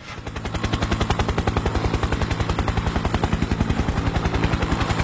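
Helicopter rotor beating in a rapid, steady chop over a low engine hum, fading in at the start.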